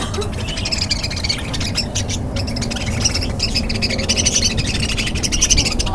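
Many birds chirping and chattering in rapid, overlapping calls, over a steady low rumble.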